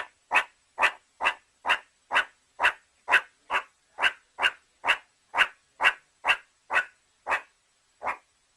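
An animal giving short, sharp, bark-like calls in an even series, about two a second. The last call comes after a slightly longer pause near the end.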